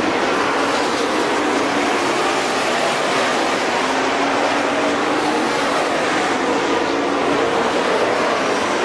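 Engines of several dirt-track modified race cars running at racing speed around the oval, a steady unbroken drone.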